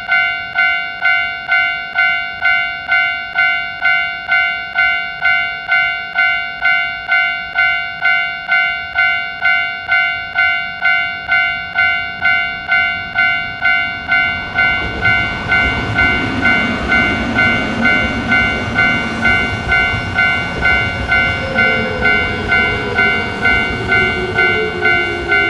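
Japanese railroad crossing bell ringing its steady "kan-kan" ding, about three strikes every two seconds. From about halfway through, an Odakyu Line train passes with a rising rush of wheel and motor noise and a falling whine near the end.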